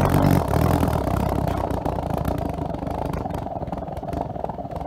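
Isopropyl alcohol vapour burning inside a glass baby food jar: a low, unsteady rumble that is loudest at the start and slowly dies down.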